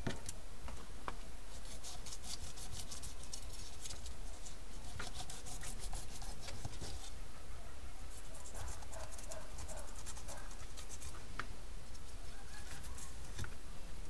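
Fillet knife cutting into a whole snook on a plastic cutting board: quick scratching, crackling clicks as the blade works along the fish, thickest in the first half, over a steady low background rumble.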